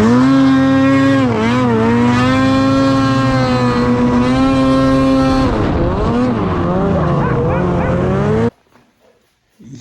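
Ski-Doo Summit 800R E-TEC two-stroke twin snowmobile engine revving hard: its pitch holds high and steady at wide-open throttle, with a short dip about a second and a half in, then wavers and drops from about six seconds, and the sound cuts off abruptly near the end.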